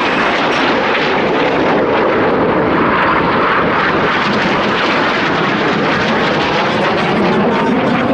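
Loud, steady jet noise from the Red Arrows' BAE Hawk T1 jets, whose Rolls-Royce Turbomeca Adour turbofans give an even, dense rushing sound with no breaks.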